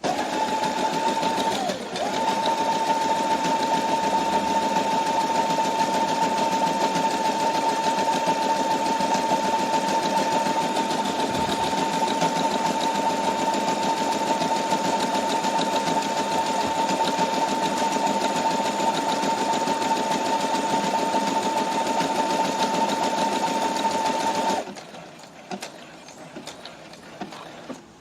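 Brother SQ9285 computerized sewing machine stitching at a steady speed, with a brief slowdown about two seconds in. The motor cuts off suddenly near the end, followed by a few light clicks.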